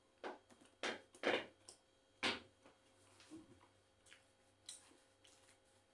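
Eating sounds from a man eating curry and flatbread with his hands: short, sharp chewing and lip smacks, four louder ones in the first two and a half seconds, then a few fainter ones.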